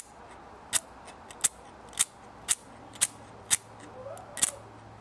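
Flint wheel of a 1939 Zippo lighter struck repeatedly with the thumb, about seven sharp, scratchy clicks roughly half a second apart. The lighter has a flint but no fluid, so it only sparks without lighting.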